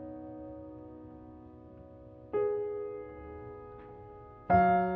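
Background music: slow piano chords, each ringing and fading, with a new chord struck about two seconds in and another near the end.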